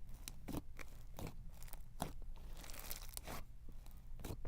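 Crunchy snow-texture slime being squeezed and pressed by hand, giving faint, irregular crunching and crackling.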